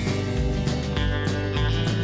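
Background music with a strummed guitar and a steady beat.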